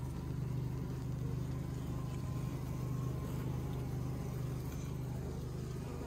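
Wild honeybee colony buzzing in a steady low hum from its comb in a rock cavity.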